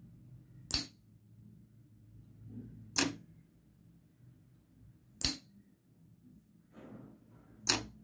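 Solenoid door lock switched through a single-channel relay, with the relay and the lock's bolt giving four sharp clacks about two and a quarter seconds apart as it is toggled on and off.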